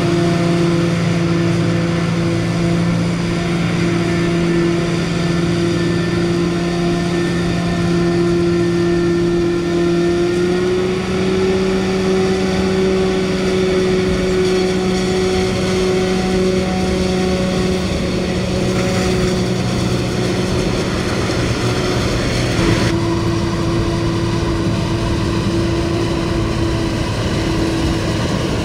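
Heavy farm machinery running steadily at working speed: a constant engine drone with a strong low pitched hum. The pitch steps up slightly about a third of the way in, and the sound changes abruptly about four-fifths of the way in.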